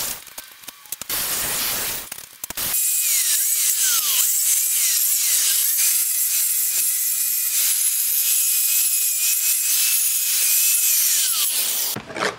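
Milwaukee angle grinder running a wire wheel against painted steel fence post to strip the paint: a harsh scratchy hiss, choppy at first, then steady, with the motor's whine dipping in pitch each time the wheel is pressed into the steel and winding down near the end.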